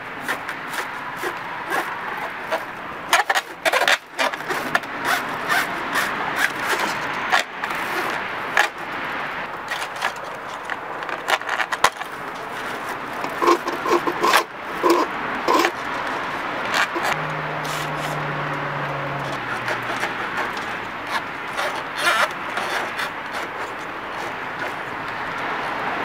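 Homemade dryer-vent brush, a toilet-snake cable with zip-tie bristles, scraping and rattling inside the dryer exhaust pipe as it is worked in by hand to loosen lint and dust. The sound is a steady rasping full of sharp clicks.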